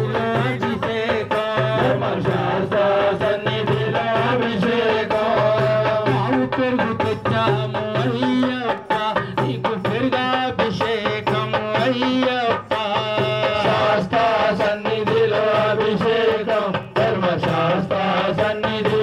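Indian devotional song: a singing voice over a steady drum rhythm, playing continuously.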